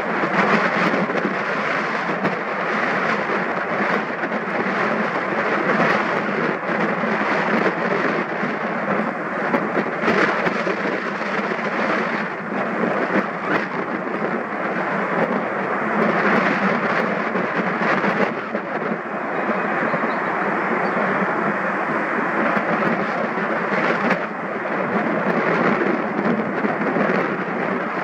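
Engine noise from an Airbus A350-900's Rolls-Royce Trent XWB turbofans at climb thrust, heard from the ground as the airliner climbs away: a steady jet roar with scattered crackles.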